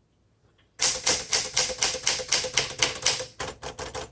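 1961 Smith Corona Sterling manual portable typewriter being typed on fast: a quick, even run of crisp keystrokes, about seven a second, starting about a second in and stopping near the end. The keys are strong and bounce right back, on a machine rated mechanically an A+.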